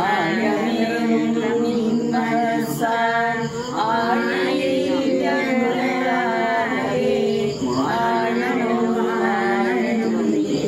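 A group singing a prayer song together, voices holding and bending long notes without a break.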